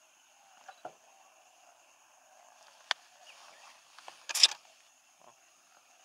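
Camera shutter and handling clicks: a few soft clicks near the start, one sharp click about three seconds in, and a brief, loud cluster of clicks around four and a half seconds in.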